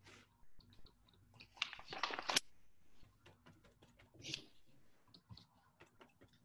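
Paper rustling and crackling as a hand rubs a sheet pressed onto a painted printing plate and then lifts it off. The loudest crackle comes about two seconds in, with a smaller one about four seconds in, among light clicks and brushing.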